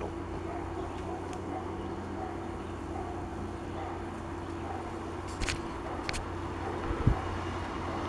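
Steady low electrical hum with a faint steady tone, broken by two light clicks and a brief thump about seven seconds in.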